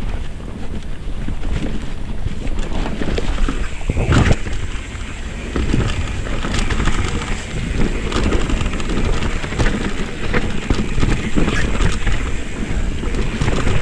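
Wind buffeting the handlebar camera's microphone as a Commencal mountain bike rolls down a dirt-and-rock trail, with tyre noise and frequent knocks and rattles from the bike over the ground. A single louder knock comes about four seconds in.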